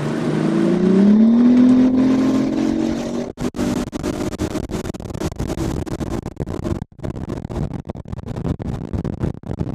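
Bass boat's outboard motor accelerating, its pitch rising over the first two seconds, then running steadily at speed, with choppy wind buffeting throughout.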